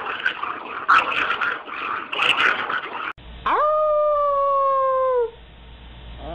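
A dog howling once: a single long note that rises sharply, holds for about two seconds while slowly sagging in pitch, then stops. Before it comes a few seconds of rough, irregular noise.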